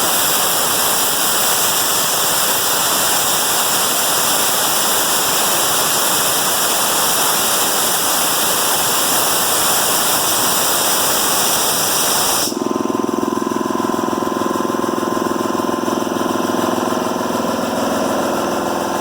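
Compressed air hissing loudly out of a Husky 80-gallon air compressor's tank as it is bled down. About two-thirds of the way through the hiss cuts off and the 4.7 hp single-stage three-cylinder compressor kicks on and runs steadily, with a tinny rattle from its belt guard.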